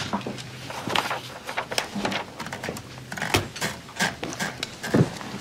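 Manual typewriter being readied: paper fed around the platen and the knob turned, giving a run of irregular clicks and small ratcheting knocks.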